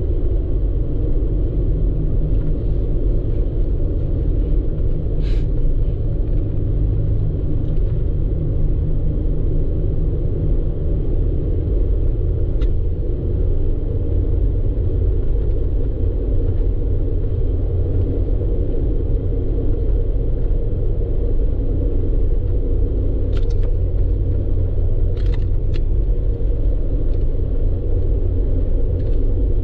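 Vehicle driving on the road: a steady low rumble of tyres and engine, with a few brief faint clicks.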